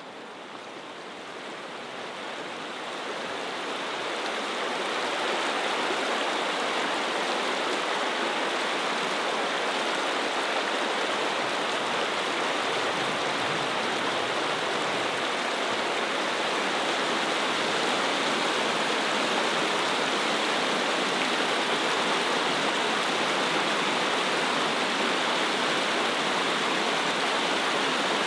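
Steady rushing of a flowing stream, an even wash of water noise that swells up over the first few seconds and then holds constant.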